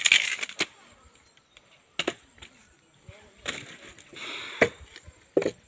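Firewood being split by hand: five sharp chopping strikes into wood, spaced irregularly a second or so apart. The first is followed by a brief clatter, and there is a short rustle shortly before the fourth.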